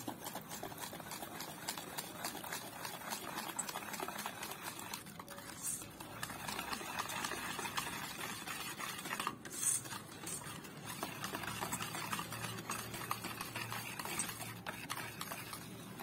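Wire whisk stirring runny semolina cake batter in a steel bowl as milk is mixed in: a continuous wet swishing with quick light clicks of the wires, easing off briefly twice.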